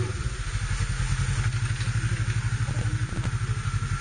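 Side-by-side UTV's engine running steadily with a rapid, even pulsing beat as it climbs a dirt slope.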